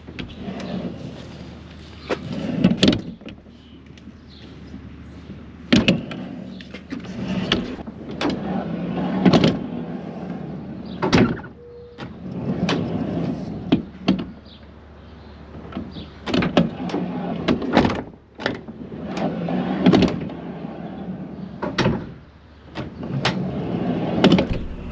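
Mercedes-Benz Sprinter van's sliding side door rolled open and shut along its track several times, each run a rumbling roll ending in a sharp clunk as the door stops. The door is being tested after a door stopper was fitted to its track; the roller rides over the stopper and comes to rest against it.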